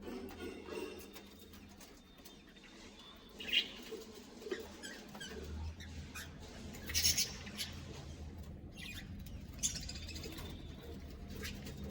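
Budgerigars in a colony cage giving a few short, scattered chirps, the loudest about seven seconds in, over a low steady hum.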